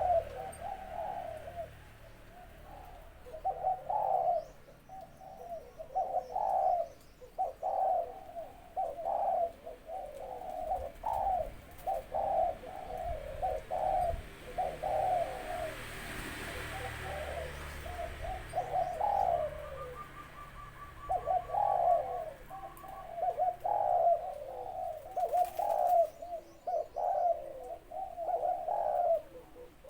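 Male zebra dove cooing: repeated short, rippling coo phrases in a small, clear voice, pausing briefly about halfway through.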